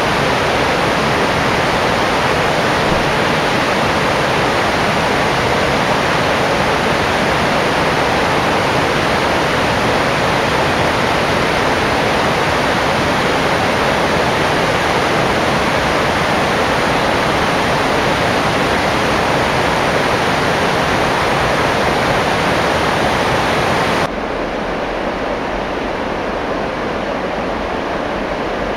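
Rushing white water of a rocky stream cascading over boulders and a small weir: a steady, loud rush. About 24 s in it drops suddenly to a quieter, duller rush.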